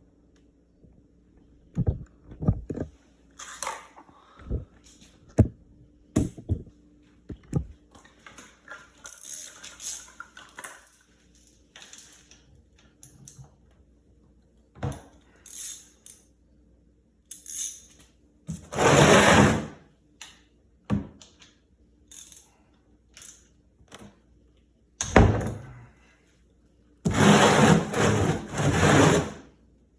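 Knocks, clunks and clicks of things being handled and set down, with a few longer scraping or rustling noises of a second or two each, the longest near the end.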